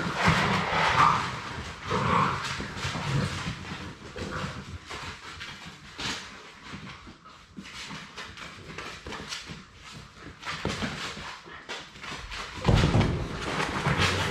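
Six-week-old Labrador Retriever puppies playing on a hard floor: short puppy cries in the first couple of seconds, then scattered clicks and scrabbles of paws and claws. Near the end comes a loud, close scuffle as two puppies wrestle right at the camera.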